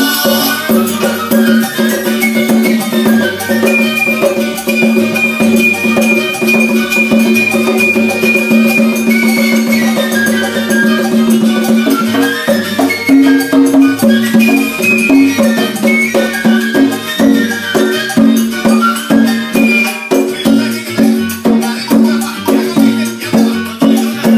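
Salsa music with a pair of conga drums played by hand in a steady rhythm along with it.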